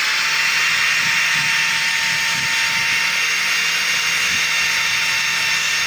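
Handheld electric power tool spinning up just before and then running at a steady speed, with a constant hiss of the spinning brush or abrasive working over corroded metal.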